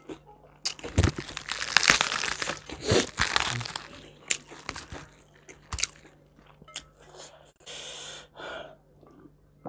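Close-miked mouth sounds of chewing crunchy food, loud and crackly for the first few seconds, then quieter, with scattered sharp clicks and a short hiss near the end.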